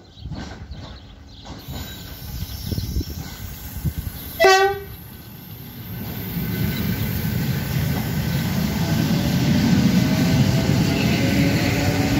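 ED9M electric multiple unit passing close by. Its wheels knock over the rail joints, it gives one short horn blast about four seconds in, the loudest moment, and then its cars roll past in a steady rumble with a faint rising whine near the end.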